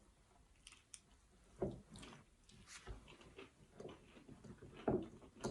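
Close-up eating sounds: a person chewing and biting into fried food, with scattered small clicks and a few louder bites.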